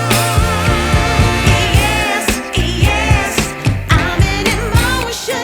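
Background music with a steady beat: a soul-pop song with a singer's vibrato over drums.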